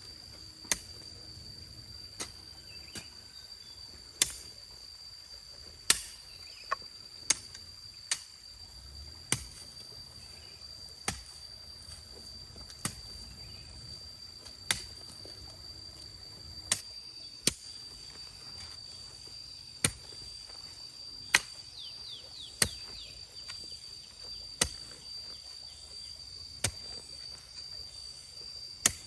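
Sharp, short strikes, about twenty of them at irregular intervals of one to two seconds, over a steady high-pitched insect drone.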